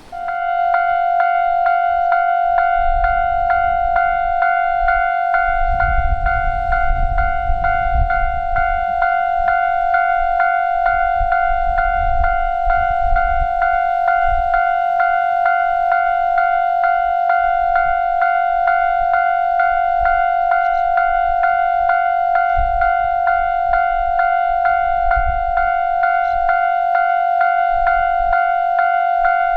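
Japanese railroad crossing warning bell sounding its electronic "kan-kan" ding, starting suddenly and repeating at a steady, even rhythm on one tone.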